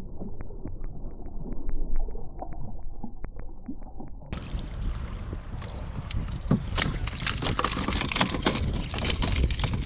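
Muffled for about the first four seconds, with a faint even ticking about four or five times a second; then water splashing and sharp knocks and rattles against a plastic fishing kayak as a hooked bluefish is brought aboard and handled.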